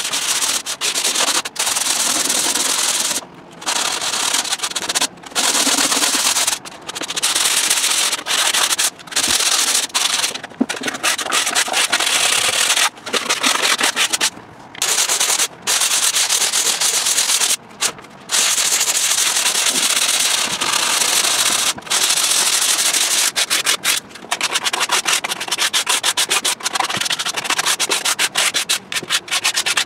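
Hand sanding of a fiberglassed plywood boat floor with sandpaper and a sanding block: a rasping scrub in runs of back-and-forth strokes with short pauses, quicker and choppier near the end. The surface is being scuffed ready for primer.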